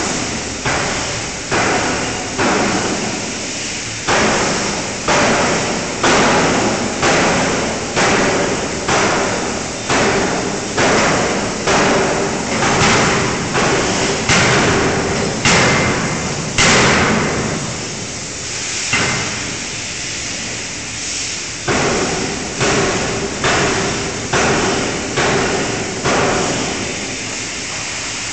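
5-ton fully hydraulic closed-die forging hammer striking a red-hot workpiece in the die: a run of heavy blows at about one and a half a second, each with a short ringing decay. The blows break off for about two seconds past the middle, then start again, over a steady hum and hiss.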